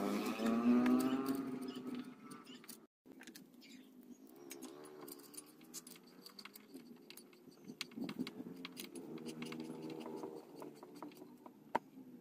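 Small clicks and scrapes of a screwdriver undoing screws in a CRT television's plastic cabinet, over a droning hum whose pitch wavers. The hum is loudest in the first two seconds and drops out briefly about three seconds in.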